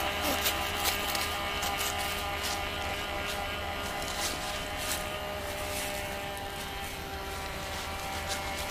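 Electric motor of a small radio-controlled racing boat (Megatech H2O Racer hull with ProBoat 9" electronics on a 2S LiPo) running at a steady speed with an even buzzing whine. Scattered sharp clicks are heard over it.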